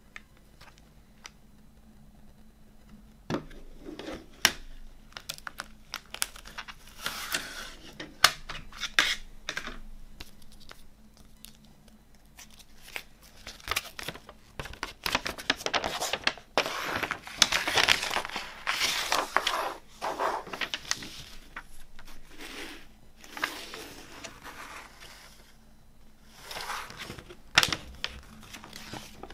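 Paper rustling and crinkling in uneven bursts as a folded CD insert is pulled out of its plastic jewel case and opened out into a poster, with sharp clicks and taps from handling the case.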